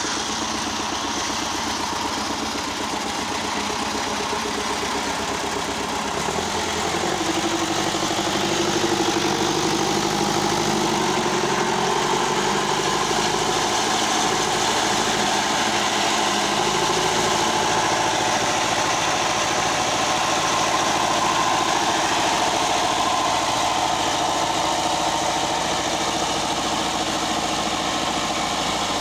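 Belarus tractor's diesel engine running steadily as it drives a flour mill; about six to seven seconds in its note changes and it gets a little louder, then holds steady.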